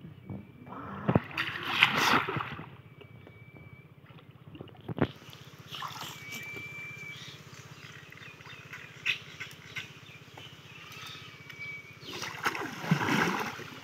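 Water splashing and sloshing as hands grope through shallow, muddy water for fish. There are two louder bursts, one a second or two in and another near the end.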